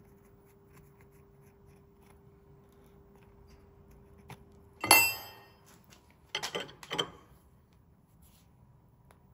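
A large steel spanner clinks sharply against metal with a ringing note about five seconds in, then clanks twice more as it is fitted onto the end plug of a brake master cylinder to tighten it. Before that there is only quiet handling under a faint steady hum.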